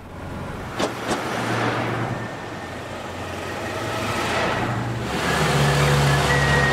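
Vintage rally cars driving past on a street, engines running with tyre noise. There are two light clicks about a second in, and a steady engine drone grows louder from about five seconds in as a car passes.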